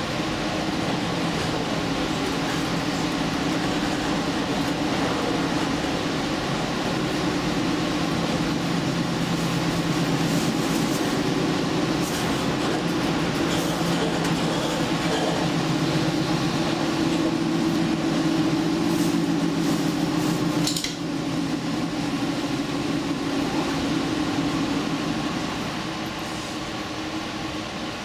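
Diesel limited express train running at speed: a steady engine drone over the rumble of wheels on rail, with a few sharp clicks along the way. It eases off a little near the end.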